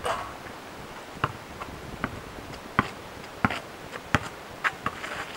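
A basketball shot striking the hoop, then a string of sharp slaps roughly every two-thirds of a second as the ball bounces on the asphalt.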